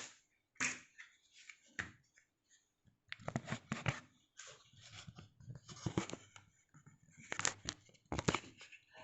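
A damp cloth is rubbed over a glass microwave turntable plate in a series of short, irregular wiping strokes with brief pauses between them.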